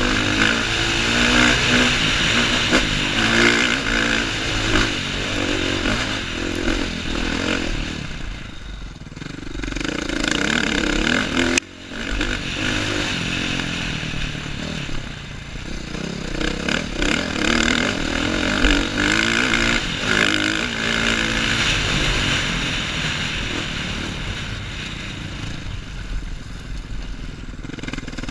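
2015 KTM 450 XC-F single-cylinder four-stroke dirt bike engine under way on a trail ride, rising and falling with the throttle, with wind and clatter on the helmet microphone. The sound cuts out for an instant about halfway through, and the engine settles lower over the last several seconds as the bike slows.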